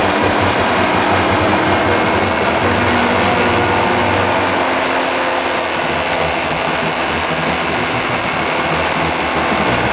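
Motorcycle engine running at a steady cruising speed, with loud, steady wind and road noise over the bike-mounted camera's microphone.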